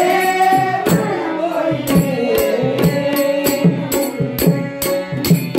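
Marathi devotional gavlan bhajan: women singing a melody into microphones over a steady held note, with a hand drum and jingling percussion keeping a steady beat of about two strikes a second.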